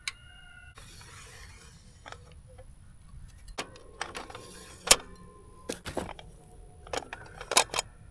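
Scattered clicks, rattles and knocks of hands setting up a battery-powered clay target thrower, working at its battery leads and its stack of clay targets, with a sharp knock about five seconds in. A brief tone sounds right at the start.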